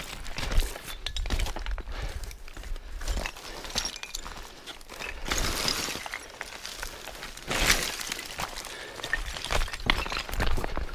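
Footsteps crunching and clinking over loose, flat shards of rock and dead sticks, irregular sharp cracks and clinks as brittle stones shift and twigs snap underfoot, with louder crunches about halfway through and again a little later.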